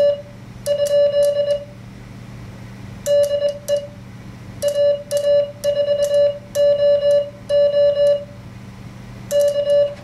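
Morse code (CW) sidetone beeps from a paddle key worked through an MFJ-493 memory keyer, sending "HW? DE AA4OO" as dots and dashes on one steady pitch. The code comes in several runs of characters with short pauses between them.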